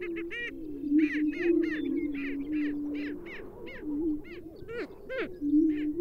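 Greater prairie-chickens displaying on a lek: a steady low booming chorus with a rapid series of short, sharp cackling calls over it, about three a second.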